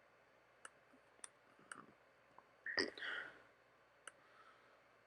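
Computer mouse clicking: about six short, sharp clicks spread unevenly, with a louder, slightly longer sound just past halfway.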